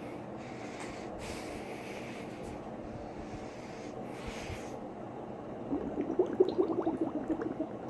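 A person making wet gurgling noises with the mouth and throat close to the microphone: a few breathy hisses, then past halfway a rapid bubbly run of gurgles lasting about two seconds.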